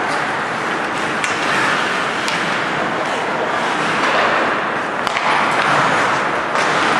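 Ice hockey play: skate blades scraping and carving the ice in a steady hiss, with several sharp clacks of sticks and puck.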